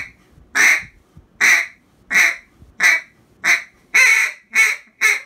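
Come Back Calls Hail Storm single-reed mallard duck call blown in a string of about eight separate quacks, each a short loud note, coming slightly quicker toward the end.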